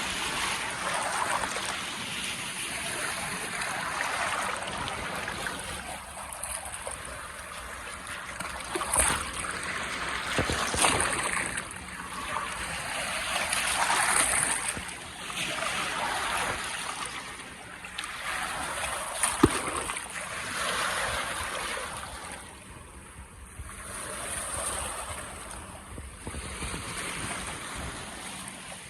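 Small lake waves washing in against the shore, the rush of water swelling and fading every few seconds, with a few sharp splashes.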